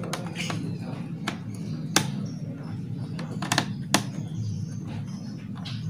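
A few sharp clicks and taps from handling the laptop's plastic casing and small screws during disassembly, one about two seconds in and a quick cluster around three and a half to four seconds, over a steady low hum.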